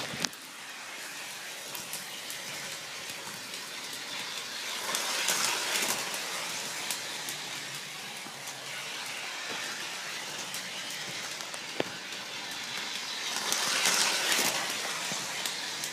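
Toy CSX 8960 model train locomotive running on its track loop: a steady rumble of motor and wheels with faint clicks. It swells louder twice as the engine passes close, about five seconds in and again near the end.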